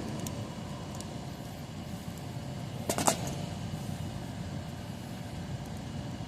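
Steady background hum, with a short metallic clatter about three seconds in as the just-picked Master Lock No. 3 padlock and picking tools are handled.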